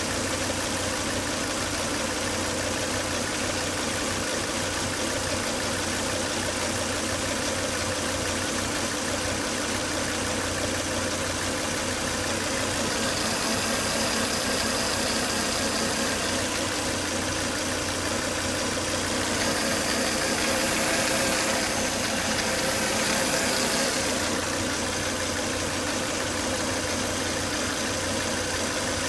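Volvo S80 2.5T's turbocharged five-cylinder engine idling steadily with a whine and hiss. The high hiss swells twice, about halfway through and again a few seconds later. The whine is the one the owner traced to excessive crankcase vacuum, cured by replacing the crankcase breather box.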